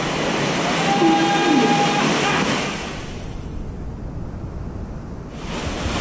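Rushing whitewater of a river-rapids ride churning around the raft, with voices calling out over it in the first half. The hiss of the water goes muffled for about two seconds past the middle, then comes back full as the raft runs into open rapids.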